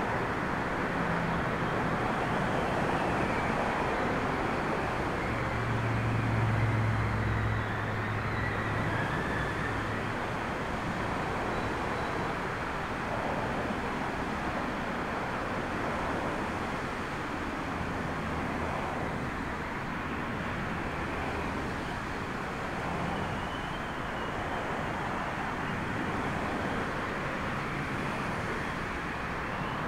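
Steady outdoor rush of storm wind mixed with distant engine and traffic noise, with a low hum swelling briefly about five to eight seconds in.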